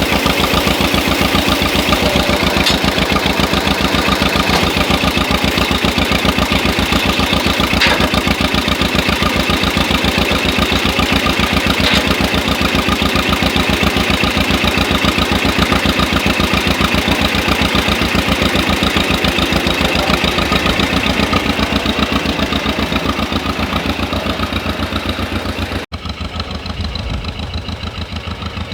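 Antique tractor engine idling steadily after a cold start, its firing pulses even and rapid. About 26 seconds in the sound cuts abruptly and the engine is heard quieter.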